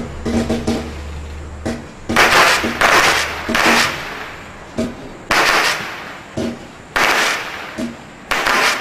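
Standard Fireworks 'Onslaught' single-ignition cake firing a rapid string of comet shots, each launch a short thump. Several louder crackle bursts break in about a second or two apart.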